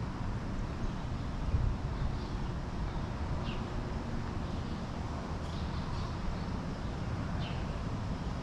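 Wind buffeting the microphone as a steady low rumble, with a bird giving a few short, high, falling chirps.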